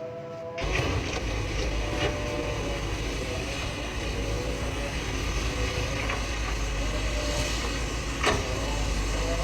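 Heavy diesel excavators working, a steady low engine rumble with a few sharp knocks from the digging, and a brief dropout at the very start.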